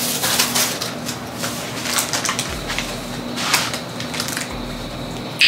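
Plastic packet crinkling and rustling as it is handled, in irregular bursts, with a sharp click near the end.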